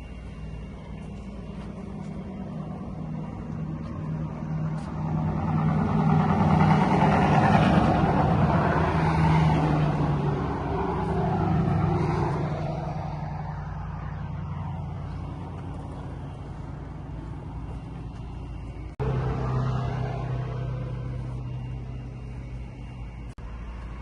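Car engine running steadily. It swells louder for several seconds in the middle, and the level jumps abruptly a little past the two-thirds mark.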